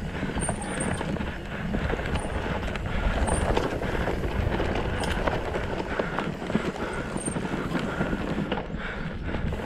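Mountain bike running fast down a dirt singletrack: tyres rolling on the dirt and a steady rattle and clatter from the bike over the bumps.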